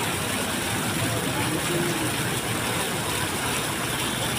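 Water jets of an ornamental fountain splashing into their basin: a steady rushing noise.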